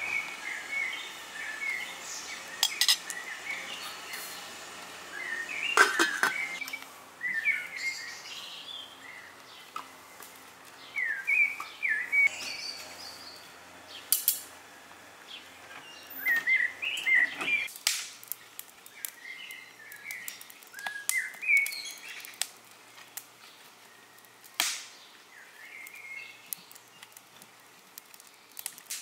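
Small birds chirping on and off, with scattered sharp clinks and knocks from a spoon in a steel pot and from tongs working a wood fire.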